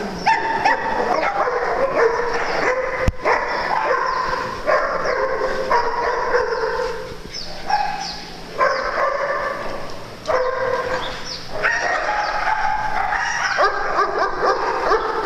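Many dogs barking at once in a large indoor hall, overlapping into a near-continuous din with only brief lulls.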